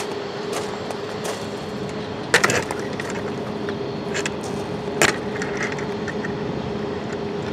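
Steady rolling noise of a Union Pacific manifest freight train with a faint held tone, broken by two sharp clicks about two and a half and five seconds in, and a few lighter ticks.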